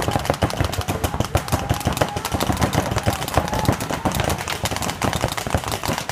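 Many mechanical paintball markers firing at once, a dense, unbroken run of overlapping shots.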